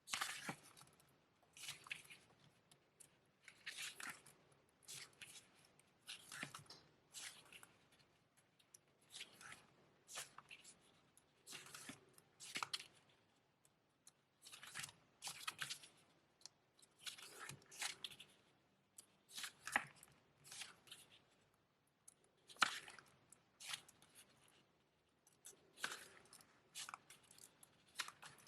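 Hands handling a CD album's packaging and paper inserts, with short rustles and crinkles about every one to two seconds.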